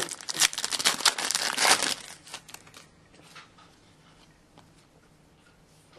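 Foil wrapper of a hockey trading-card pack crinkling and tearing as it is torn open, loud for about two seconds, then fainter rustling of the cards being handled.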